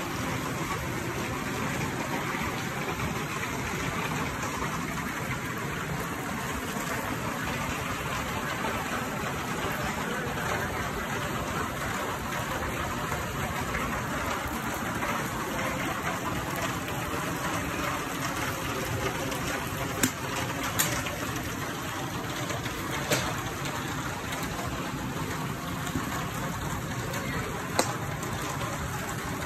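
Steady rain falling, an even hiss with no break. It is punctuated by four short sharp clicks, two close together about twenty seconds in and one each a few seconds later.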